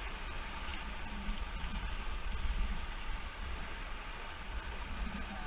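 Steady rush of river water, with a low, fluttering rumble of wind on the microphone.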